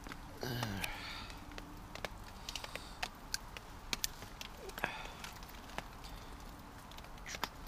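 Small scattered clicks and rustles of hands twisting the screw cap off a miniature whisky bottle, with a short low grunt falling in pitch about half a second in.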